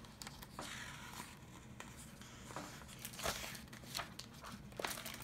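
Paper pages of a hardcover picture book being handled and a page turned: a few soft rustles and clicks, the loudest from about three seconds in.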